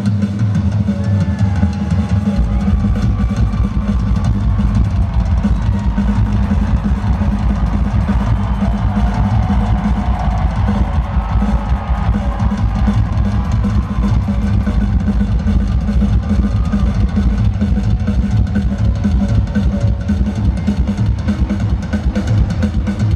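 Rock drum kit played in a fast, busy solo, amplified through an arena PA: rapid strokes on drums and cymbals, with a continuous fast bass-drum roll coming in about two seconds in.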